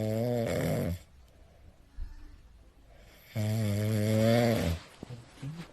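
Snoring: two long, steady-pitched snores about three seconds apart, with quieter breaths between them.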